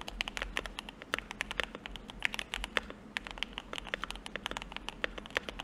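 Fast continuous typing on a Bakeneko65 CNC aluminium-case 65% mechanical keyboard with JWICK Black switches and Earl Grey keycaps. It is a dense, uneven stream of sharp, clacky keystrokes, several a second.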